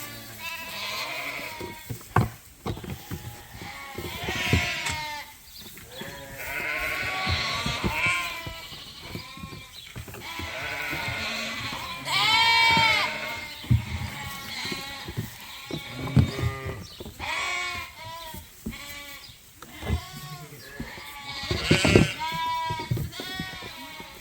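Many lambs and sheep bleating, high arching calls overlapping one another, with the loudest bleats about halfway through and again near the end. Scattered sharp knocks sound among the calls.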